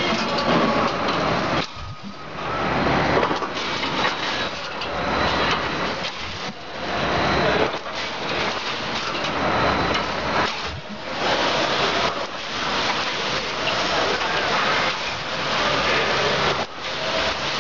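Automatic row-type wire mesh welding machine running: loud crackling and hissing from resistance welds firing across the row of electrodes over a steady low hum. The noise comes in cycles broken by brief pauses every few seconds as the mesh is pulled forward between welds.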